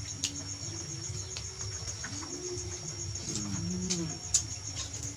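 Crickets chirping steadily, a high, evenly pulsing trill that never stops, over a low hum, with a sharp click about four seconds in.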